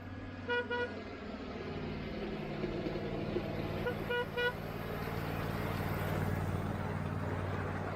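Short horn toots from a 7.5-inch gauge riding train: two quick toots near the start, then three quick toots about four seconds in. Under them is a steady low hum and rumble that slowly grows louder.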